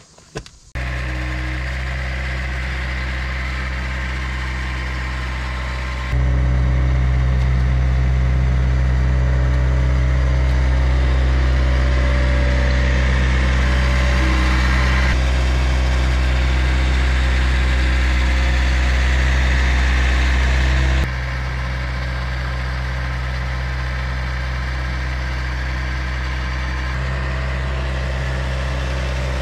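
Skid steer loader's engine running steadily while carrying a load. It gets louder about six seconds in and drops back about two-thirds of the way through.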